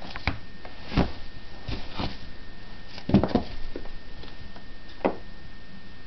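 Scattered light knocks and rustles, a few irregular bursts a second or so apart, from a cat moving about.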